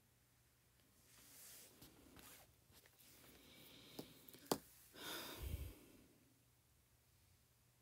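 Near silence with faint rustling, two sharp clicks about four seconds in, the second louder, then a brief rustle with a soft thump.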